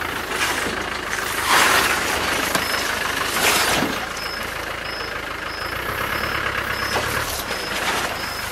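Land Rover 4WD being winched over a rocky creek bed, its engine running with a steady low hum. There are two loud rushes of noise in the first half, and a short high electronic beep repeats about twice a second through the second half.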